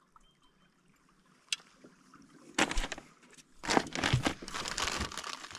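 Handling noise in a small fishing boat: after a short quiet spell and a single click, two stretches of rustling and knocking as gear is moved about.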